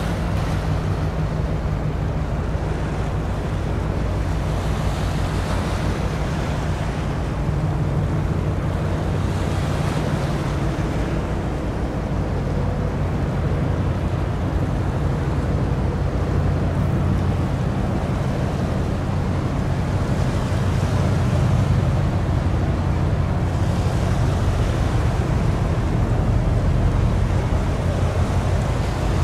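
Steady low hum of the SANTA CATARINA, a 300 m container ship, running past, over the rush of water from its bow wave and wind on the microphone.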